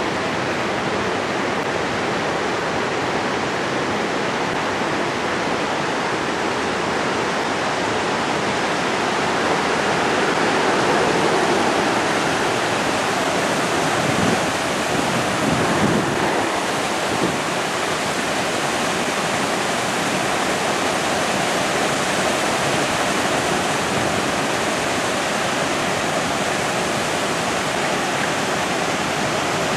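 Fountain water spilling in a sheet over a low wall into its basin: a steady rushing splash.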